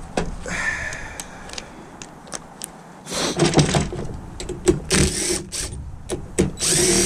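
Hand tools and metal parts of an oxygen concentrator clicking and clattering as fasteners are worked loose. The short knocks are irregular and come thicker from about halfway through.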